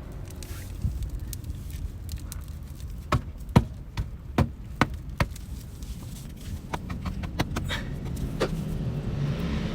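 Sharp metallic clicks and taps of hand tools and bolts on a motorcycle's generator cover as it is refitted. A run of clicks comes a little under half a second apart in the middle, then more scattered ones, over a steady low hum.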